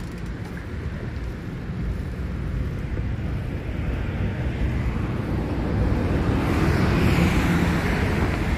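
Road traffic on the multi-lane road alongside, mixed with wind rushing over the microphone of a moving bicycle. The noise builds slowly and is loudest about seven seconds in, as a car goes by.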